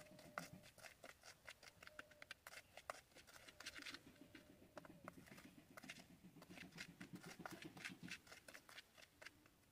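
Faint, irregular scraping and clicking of a metal spoon stirring baking soda and detergent powder in a small plastic bowl.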